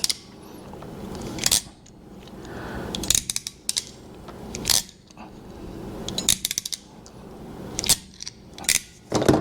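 Hand crimping tool clicking as it is worked to crimp a ferrule onto a PL259 coax connector: a series of sharp metal clicks spread over several seconds, some in quick clusters.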